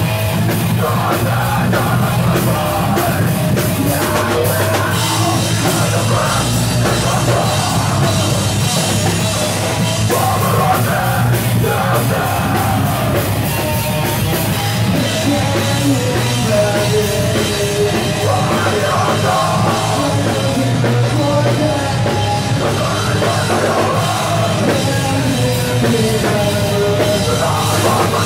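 A live metal band playing loud, with drums, guitars and vocals.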